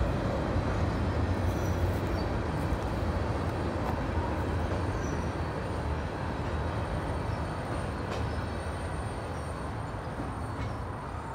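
Freight cars of a long CSX freight train rolling across a steel truss railroad bridge overhead: a steady rumble of wheels on rail and steel that slowly fades.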